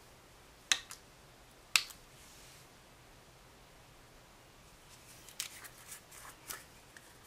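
Hard clicks and taps from small objects being handled: two loud sharp clicks in the first two seconds, then a run of small clicks as the plastic screw cap of a Vicks VapoRub jar is twisted off.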